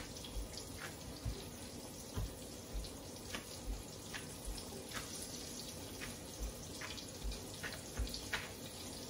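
Steady hiss of a breaded cubed steak frying in hot oil, with soft thumps about once a second as gloved hands press a floured cubed steak flat on a wooden cutting board.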